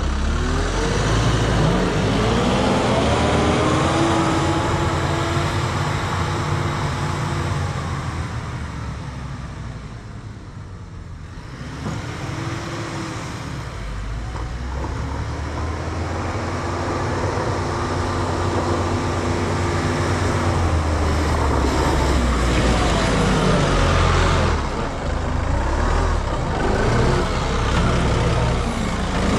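Kubota M5-091 tractor's four-cylinder turbo diesel engine running under load while pushing snow, its pitch rising, holding and falling several times. It grows quieter about ten seconds in, then builds again and is loud as the tractor passes close near the end.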